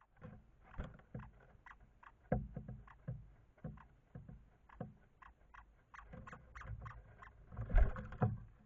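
Birds at a camera-trap bird feeder, tapping and scratching as they land and peck at the seed: irregular taps and knocks heard through the feeder camera's built-in microphone, with a louder thump near the end.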